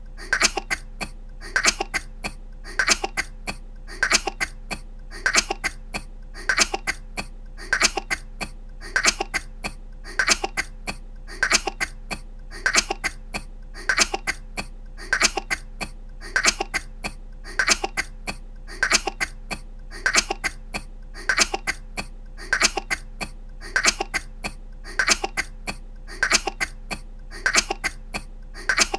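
A young woman coughing in short bursts of small coughs. The same burst repeats at even spacing about every two seconds, as a loop.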